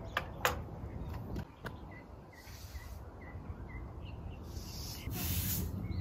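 Outdoor ambience: two sharp clicks near the start as a small tin is set down on wooden decking, then a bird chirping a quick series of short notes about two seconds in, with bursts of hiss and a steady low rumble underneath.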